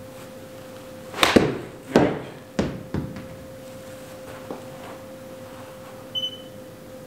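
A golf shot in a simulator bay: a sharp crack of club striking ball, then several knocks as the ball hits the impact screen and drops and bounces back onto the floor. A short electronic beep from the simulator sounds near the end over a steady faint hum.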